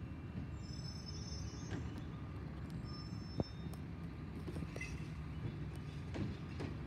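Distant garbage truck's engine running, a steady low rumble, with a single sharp click about three and a half seconds in.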